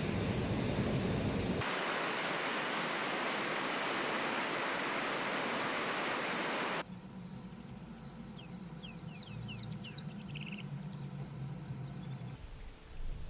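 A steady, loud rushing noise outdoors, rumbling low at first and then a bright hiss, followed after a cut by a quieter stretch in which a bird gives a quick series of short chirps.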